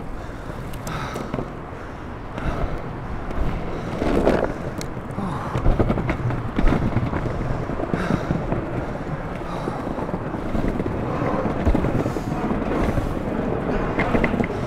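Longboard wheels rolling over paving slabs, a steady rumble with occasional clacks, and wind on the microphone.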